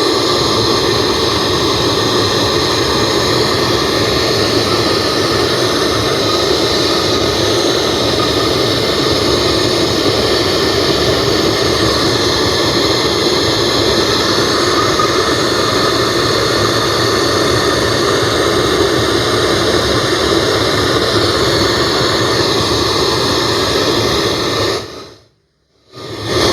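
Mini tower speaker in FM mode playing loud, steady radio static (untuned FM hiss) through its amplifier. The volume now comes through at full strength after the volume control was re-soldered. The hiss cuts out for about a second near the end, then returns.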